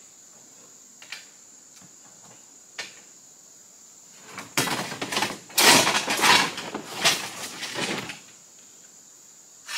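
Loose rocks being shifted in a pickup truck bed: a few light knocks, then, about halfway in, a run of clattering and scraping of rock on rock and on the bed that lasts about three and a half seconds.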